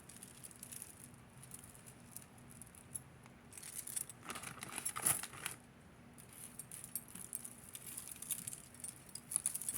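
Loose beads clicking and rattling as they are handled and scattered, a run of light ticks with a louder clatter about four to five seconds in.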